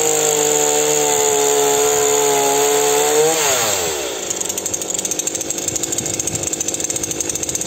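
Titan TTL759CHN 40cc two-stroke petrol chainsaw running at high revs while lightly cutting into a log, then the throttle is released about three and a half seconds in and the engine falls to a pulsing idle.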